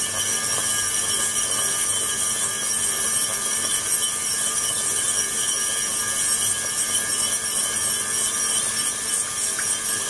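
Ultrasonic bath running with the transducers driving the water: a steady, mostly high-pitched hiss with several faint steady whining tones.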